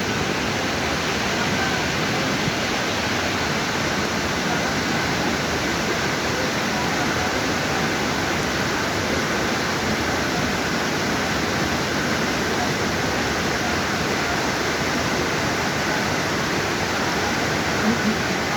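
Waterfall and river water rushing, a steady even sound of falling and flowing water.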